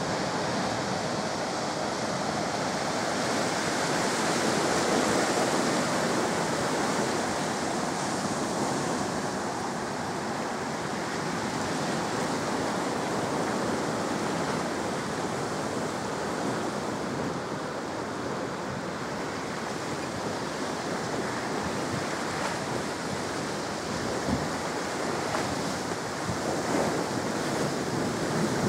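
The River Severn in tidal flood: choppy water rushing upstream behind the Severn Bore, with small waves washing along the bank, a steady rushing sound.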